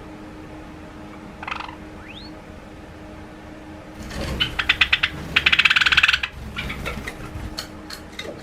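Java sparrows: a short chirp and a thin rising peep, then about two seconds of loud, very rapid chattering, the startled call of a Java sparrow, followed by a few sharp taps.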